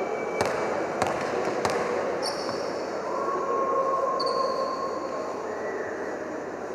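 A basketball bounced three times on the court at the free-throw line, roughly two thirds of a second apart, within the first two seconds, over steady crowd noise.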